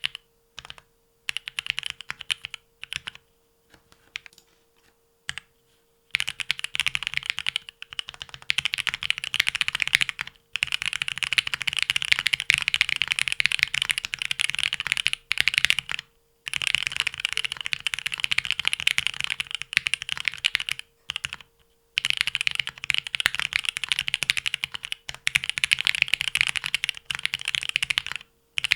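Typing on a Leaf65 mechanical keyboard fitted with lubed Marshmallow switches and Extended 2048 keycaps. Scattered single keystrokes for the first few seconds give way to fast, steady typing, broken by a few short pauses.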